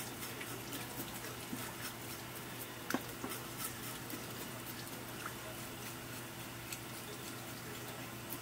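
Tap water running from a hose onto a fish on a cutting board while a knife scrapes off its scales, giving many small scattered clicks and one sharper knock about three seconds in.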